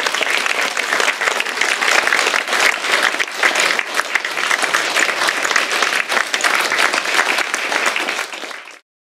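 Audience applauding: dense, steady clapping from a large crowd that cuts off abruptly near the end.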